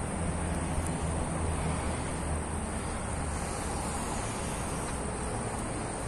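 A steady, high-pitched insect chorus, like crickets, drones without a break, over a low, uneven rumble.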